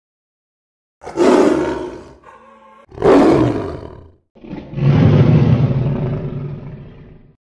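Big-cat roar sound effect, three times: two roars of about a second each, then a longer one that trails off over about three seconds.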